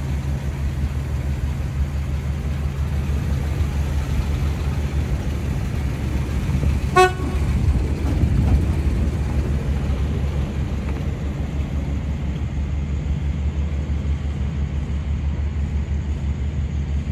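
1979 Chevrolet C10's 250 cubic-inch inline-six running steadily as the truck pulls away and drives off. A single short horn toot about seven seconds in.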